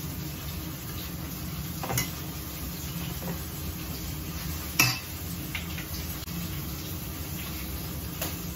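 Metal spoon stirring sliced tomatoes in a ceramic bowl, with a few sharp clinks of spoon and dishware, the loudest near the middle, over a steady low hum.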